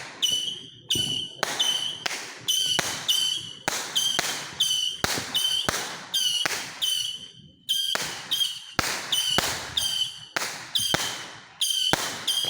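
A rapid series of firework bangs, about two a second, each echoing and dying away, with a short high-pitched ring after many of them.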